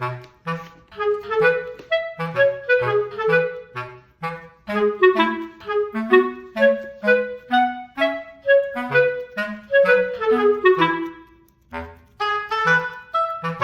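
Background music: a playful melody on clarinet-like woodwind over a bouncing, evenly paced bass line, with a short break about twelve seconds in.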